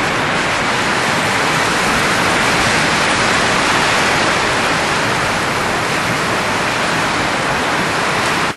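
Loud, steady rushing noise with no pitch or rhythm in it, stopping abruptly near the end.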